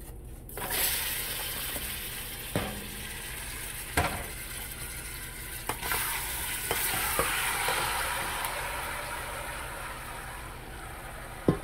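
Marinated chicken pieces sizzling as they drop into hot curry oil in a stainless steel pot. The frying hiss starts about a second in and keeps going, and a few sharp knocks come from the wooden spatula scraping the chicken out of a steel bowl.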